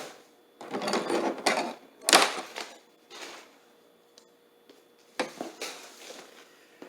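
A big gift box being opened by hand: bursts of rustling and handling noise, with a sharp knock about two seconds in and a pause before a last burst near the end.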